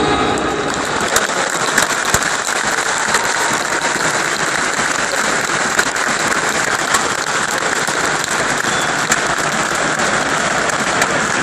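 Stadium crowd applauding: dense, steady clapping, with a few sharper claps from spectators close by.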